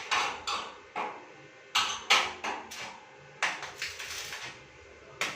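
An irregular series of about ten sharp metal knocks and clanks, each ringing briefly.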